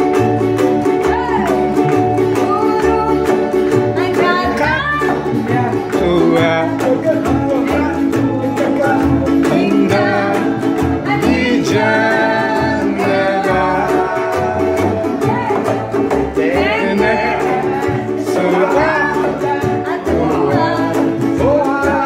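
Small acoustic string band playing an upbeat Indonesian children's song: an upright bass plucking the bass line under a small ukulele-like instrument strumming steadily, with a voice singing the melody from about four seconds in.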